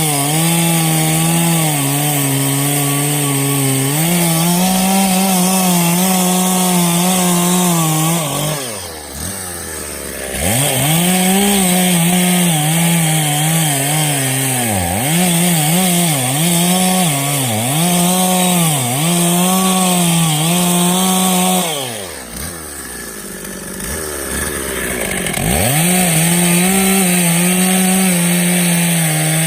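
Stihl chainsaw cutting through oak branch wood at full throttle, its engine pitch sagging and recovering again and again as the chain loads up in the cut. Twice, about nine seconds in and again a little past twenty-two seconds, it drops to idle for a couple of seconds before revving back up into the cut.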